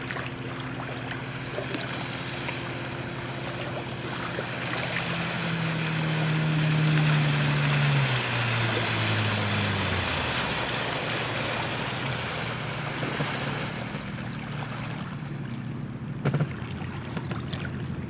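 Outboard motor driving a GROM EVO 350 inflatable boat at planing speed, with the hiss of spray off the hull. About eight seconds in, the engine note drops as the boat slows down.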